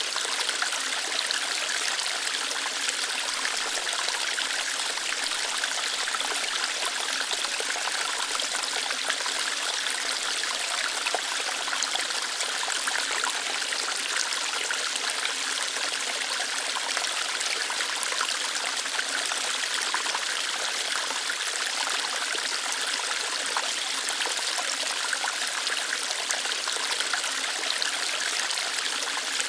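Small waterfall splashing and flowing lightly over rocks, a steady hiss of running water with fine splashes and no change in level.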